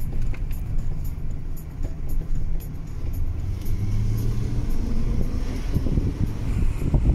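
Car driving, with a steady low rumble of engine and tyres heard from inside the cabin.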